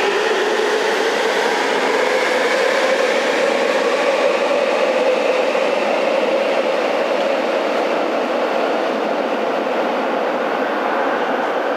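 Saitama Railway 9000 series subway train accelerating out of an underground station. The whine of its traction motors rises slowly in pitch over a loud running noise, which echoes on down the tunnel and eases slightly after the cars have gone.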